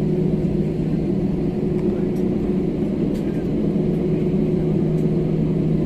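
Steady cabin noise of a jet airliner taxiing, its engines running at taxi power: an even rumble with a low, steady hum.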